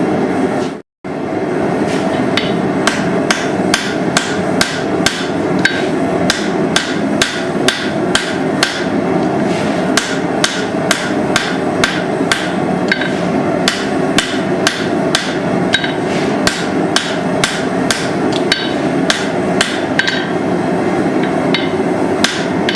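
Blacksmith's hand hammer striking hot steel on an anvil while forging an axe head, in a steady run of about two to three blows a second. The blows start just under a second in, over a constant rushing background noise.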